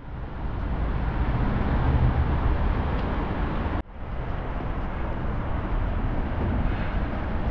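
Steady road traffic noise, a low rumble of vehicles on the road and the elevated expressway overhead. It breaks off for an instant just before four seconds in, then resumes.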